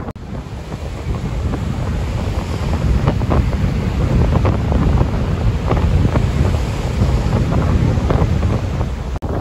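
Strong wind buffeting the microphone in a low rumble, over choppy lake waves splashing and breaking.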